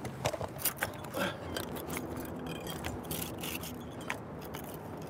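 Handling noise as the camera is set down: a few knocks and rubbing sounds in the first second and a half, then a low steady background hum with occasional faint clicks.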